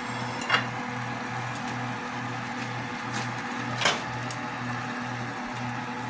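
Chicken leg quarters and sliced onion sautéing in a pot under a steady hum that pulses about twice a second, with two sharp metal clinks of a spoon against the pot, one about half a second in and a louder one just before the four-second mark.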